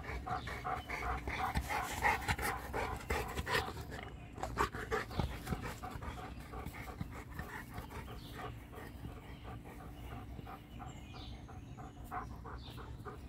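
Large brindle mastiff-type dog panting close by, in fast, even breaths that are loudest in the first few seconds and fainter after.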